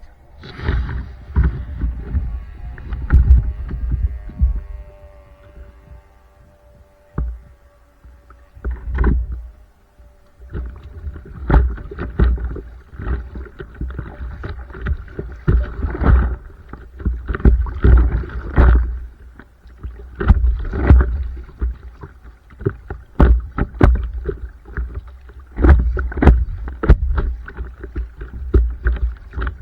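Stand-up paddleboard paddle strokes dipping and splashing in the water, coming irregularly about once a second, over low rumbling wind on the microphone. A steady hum with several tones is heard at first and fades out around eight seconds in.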